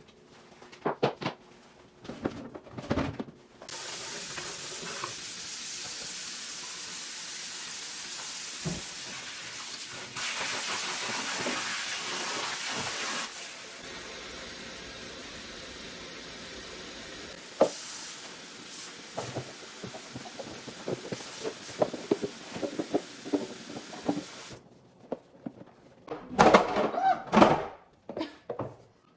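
Tap water running into a sink for about twenty seconds, hitting fridge shelves and drawers as they are rinsed. Knocks and clatter of the parts being handled come before and after.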